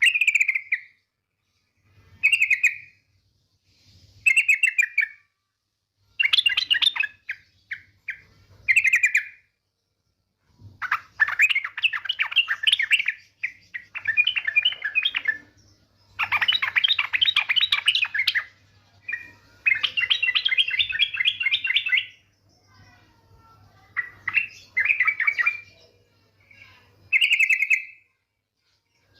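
Female yellow-vented bulbul (trucukan) giving rapid chattering 'ngetir' calls in repeated bursts, some brief and some running two to three seconds, with short pauses between them. A faint low hum sits under the calls.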